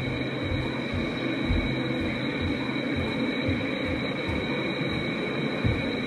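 Doorbell camera's own audio track at night: a steady hiss with an uneven low rumble beneath it and a thin, steady high-pitched electronic whine over the top.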